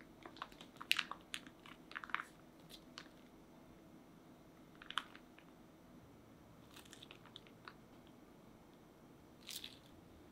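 Plastic piping bag crinkling and crackling in the hand as soft cheesecake cream is squeezed out into a silicone mold. The faint crackles come in scattered clusters, busiest in the first two seconds, with a few more about five, seven and nine and a half seconds in.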